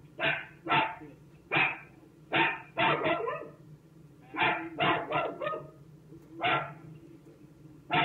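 A pet dog barking repeatedly: about a dozen short, sharp barks, some single and some in quick runs of two or three.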